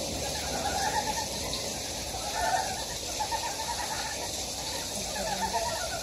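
A chorus of frogs croaking in a stream pool, many calls overlapping, with a new cluster of rattling croaks about every second. It is a spring breeding chorus.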